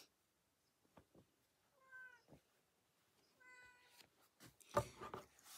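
Two faint animal calls, about two seconds in and again a second and a half later, the second higher-pitched, among soft knocks and cloth rustling as a towel is folded.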